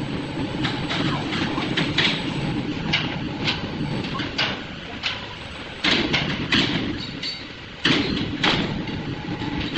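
A steady low rumble with irregular sharp knocks and clatter, the loudest knocks coming in the second half.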